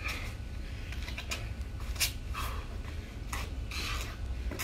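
Shoes scuffing and landing on concrete and a foam exercise mat during butt-down burpees, with several sharp knocks and short hard breaths between them. A steady low wind rumble on the microphone runs underneath.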